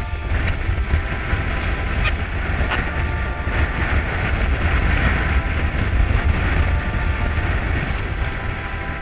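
Wind buffeting the microphone with a heavy low rumble, over the rush of water along the hulls of a Weta trimaran under sail; the rush swells in the middle.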